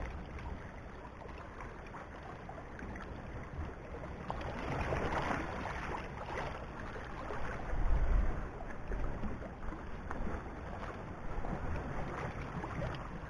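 Wind buffeting the microphone over small sea waves washing against rocks, with a stronger gust about eight seconds in.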